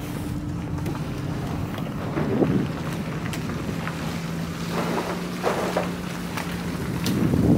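Wind buffeting the microphone over a steady low engine hum, with a few scattered light knocks; it grows louder near the end.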